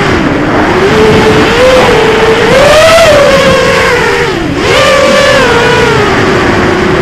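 Eachine Tyro 129 FPV quadcopter's brushless motors whining, the pitch rising and falling with the throttle. The pitch sags about half a second in, climbs to its highest about three seconds in, then drops sharply with a brief dip in loudness about four and a half seconds in before the motors spool back up.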